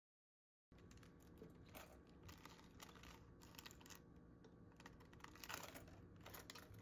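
Faint crisp rustling and irregular crackles of raw napa cabbage leaves being handled and laid into a pot over a metal steamer basket. It starts about a second in, after a moment of dead silence.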